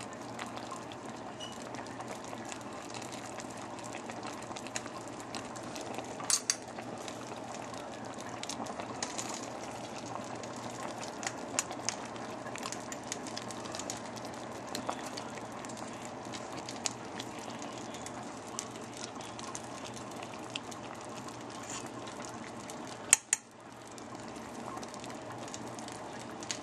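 A pot of stew bubbling at a steady simmer, with occasional sharp clinks of a metal spoon against the pot, one about six seconds in and the loudest late on.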